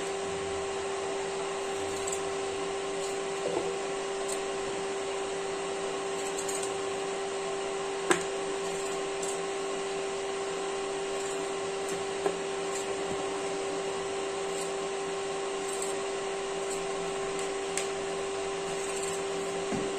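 A steady, unchanging motor-like hum with a hiss underneath, and a few sharp clicks of a knife against a steel plate as peeled potatoes are cut into quarters, the loudest about eight seconds in and another about twelve seconds in.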